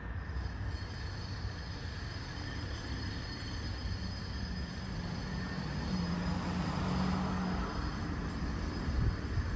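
Steady low outdoor rumble with a distant engine hum that swells about halfway through and then fades.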